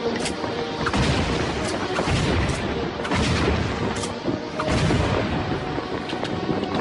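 Cartoon sound effects: repeated bangs and booms, about two a second, over a low rumble, with cartoon music faintly underneath.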